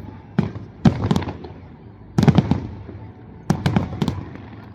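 Fireworks shells bursting: four clusters of sharp bangs, each followed by a short trailing rumble.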